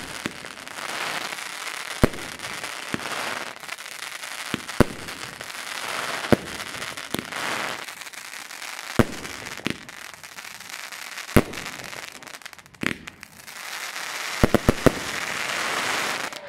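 Aerial fireworks going off: a sharp bang every second or two, each followed by a dense fizzing crackle of white glitter stars. There are three quick bangs in a row near the end.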